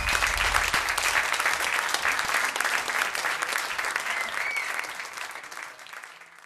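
Concert audience applauding, with a couple of short whistles; the applause fades out near the end.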